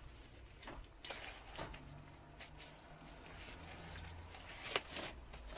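Faint clicks, knocks and rustling from a folding camping chair and its fabric carry bag being handled, a few sharp knocks spread across the few seconds.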